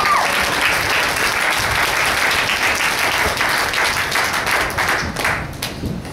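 Audience applauding: dense clapping that thins out and fades near the end.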